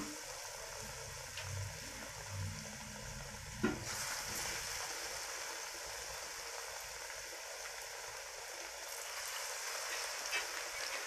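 Batter-coated raw banana slices deep-frying in hot oil in a kadai, a steady sizzle. There is one short knock a little over three and a half seconds in.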